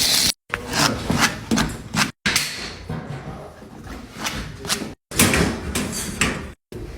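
Knocks, clanks and scrapes from sheet-metal ductwork being handled and fastened during plenum fabrication, in short bursts broken by abrupt cuts.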